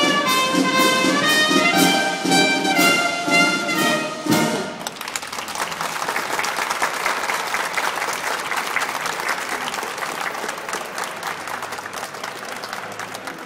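Brass band playing, the piece ending on a final chord about four seconds in, followed by applause from a crowd that slowly fades away.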